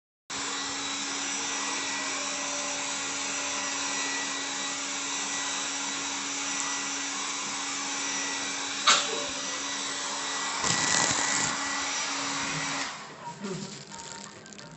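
A small corded handheld electric device with a motor, pressed against a patient's feet, running with a steady hum and whirr, then switching off about thirteen seconds in. A sharp knock comes about nine seconds in.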